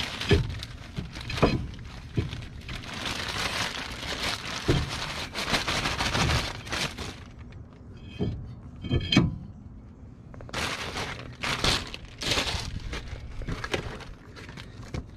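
Plastic bag crinkling and rustling in two long stretches, with a few sharp knocks, as a new cross-drilled brake rotor held through the bag is fitted onto the wheel hub.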